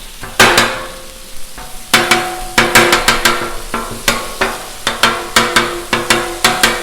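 Ground beef sizzling on a Blackstone flat-top griddle while a metal spatula chops it against the steel top. There is one clack early on, then repeated ringing clacks about three times a second from about two seconds in.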